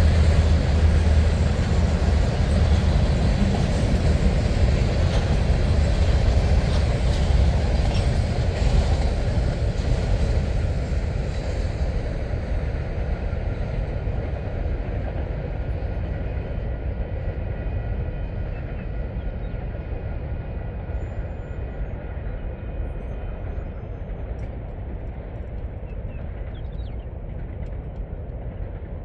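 Freight train cars rolling past on the rails, a loud low rumble with rattle. The sound fades steadily as the end of the train moves away: the high rattle drops out about twelve seconds in, leaving a fainter low rumble.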